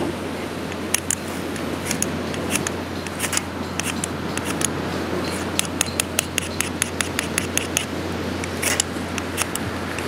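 Short, sharp scraping strokes of a hand-held metal tool at the fire stand's tinder and kindling, scattered at first and then a quick run of about five strokes a second a little past halfway.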